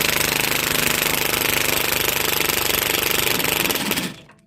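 Impact wrench hammering for about four seconds on a nut of a Land Rover 110 steering damper mounting, a fast, steady rattle that starts abruptly and then stops.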